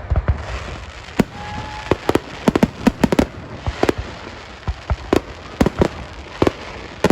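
Fireworks display: a rapid, irregular series of sharp bangs, a dozen or more, over a steady crackle, with a short high whistle about a second and a half in.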